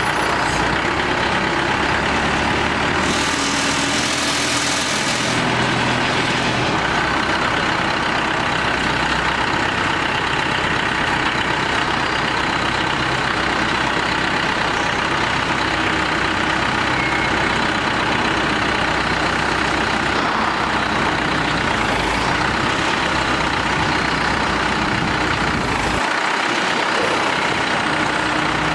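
Engine of a pneumatic rock drilling rig running steadily and loudly, with a burst of hissing about three seconds in that lasts a couple of seconds.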